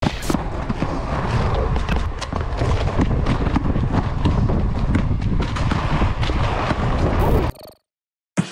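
Running footsteps and a basketball being dribbled on concrete, with many quick knocks over a heavy, steady low rumble. It cuts off suddenly near the end.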